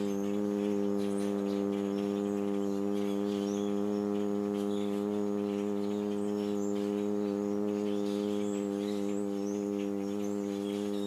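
A steady low hum at one unchanging pitch, rich in overtones, holding without a break, with birds chirping faintly in the background.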